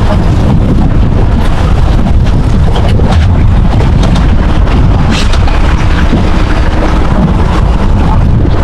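Wind buffeting the microphone on a boat at sea: a loud, steady low rumble, with a few short knocks.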